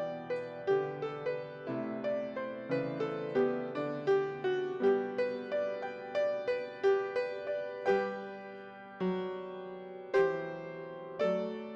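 Solo piano playing, a steady run of single struck notes over held chords, each note fading after it is struck.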